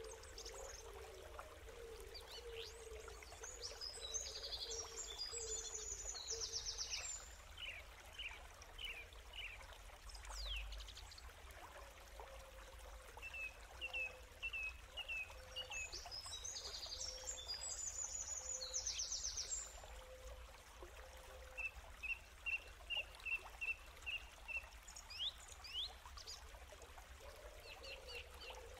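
Birds chirping and twittering in runs of short, quick high notes over a faint, steady trickle of running water.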